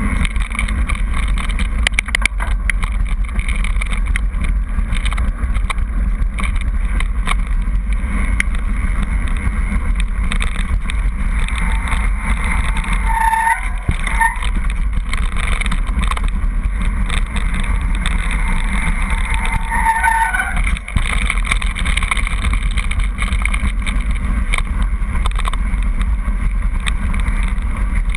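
Wind buffeting the microphone and mountain bike tyres rumbling over a loose gravel track on a descent, a steady heavy noise. Two brief high squeals come about halfway through and again about two-thirds of the way in.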